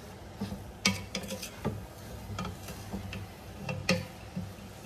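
Wooden spatula stirring a ground beef and spring onion filling in a stainless steel pot, scraping and knocking against the pot's sides in irregular clicks, the loudest about a second in and near four seconds in, over a low steady hum.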